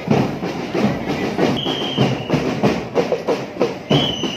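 Children's marching drum band beating a steady marching rhythm, about three to four strokes a second, with two whistle blasts, one a little after a second in and one near the end.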